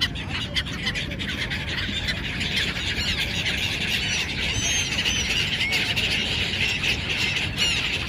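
A large flock of gulls calling all at once, a dense, continuous chorus of overlapping squawks, over a steady low rumble.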